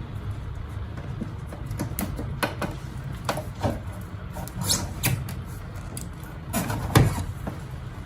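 Metal clunks and scrapes as the blower housing of a self-contained air conditioner is turned by hand on its mount after its clamp and set screw are freed. The knocks are scattered, with the loudest about seven seconds in, over a steady low hum.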